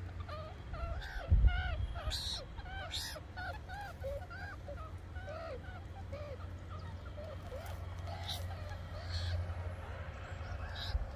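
Meerkat pups calling: a rapid run of short chirps that rise and fall in pitch, two or three a second, thinning out near the end. A brief thump about a second and a half in is the loudest sound.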